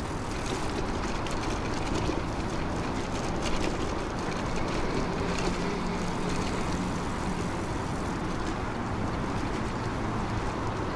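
Steady riding noise from a 2000 W DIY e-bike under way: wind rushing over the microphone with tyre hum, and a faint low hum about halfway through.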